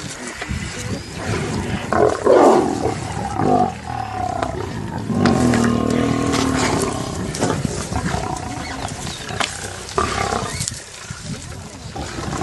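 A pride of lions growling as they feed together on a zebra carcass, with loud growls about two seconds in and again from about five to seven seconds in.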